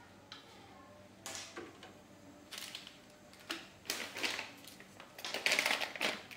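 Kitchen handling noises while cooking noodles: a series of short, noisy rustling or clattering bursts, the longest and loudest near the end.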